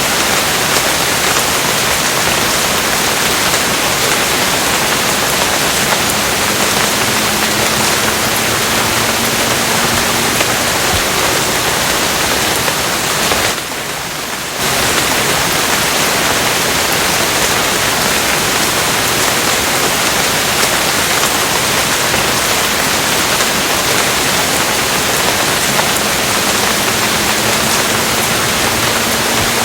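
Steady, dense rain hiss, with a brief drop in level about halfway through.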